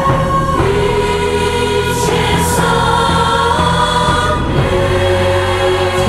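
A choir singing a slow song with accompaniment, the voices holding long notes on the lyric '啊 一切生命' ('Ah, all life').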